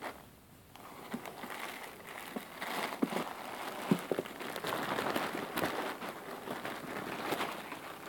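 Thin clear plastic bag crinkling and rustling as it is handled, faint at first and building after about a second into a steady run of sharp crackles.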